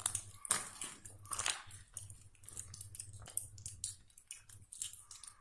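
Footsteps crunching irregularly on gravel and rubble, with scattered sharp clicks and scuffs.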